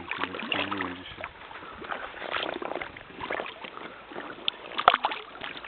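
Kayak paddling: a paddle dipping and splashing in the river water, with a few sharp knocks about five seconds in.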